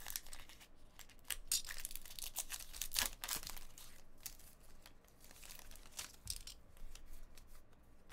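Foil wrapper of a trading-card pack being torn open and crinkled: a run of sharp crackles and rips, loudest in the first half, then softer crinkling as the cards are pulled out of the wrapper.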